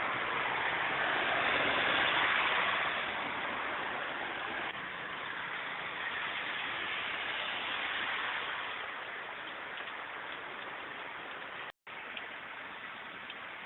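Heavy rain pouring down in a steady hiss, a little louder in the first few seconds. The sound drops out for an instant near the end.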